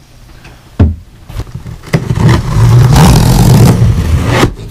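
A blade slitting the packing tape along a large cardboard shipping box. A thump comes about a second in, then a loud, rough, continuous scraping for a couple of seconds with a heavy low rumble from the box, which stops suddenly near the end.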